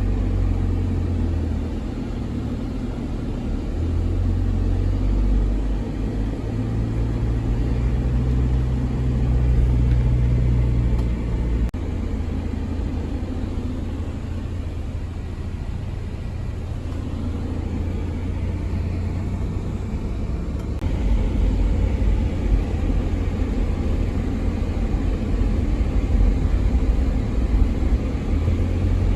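Steady low rumble, like a moving vehicle, that changes in character suddenly about twelve seconds in and again about twenty-one seconds in.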